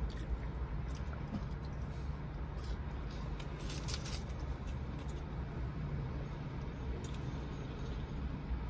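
Steady low hum of a car's interior, with a few brief soft crackles of food wrappers being handled and eating noises.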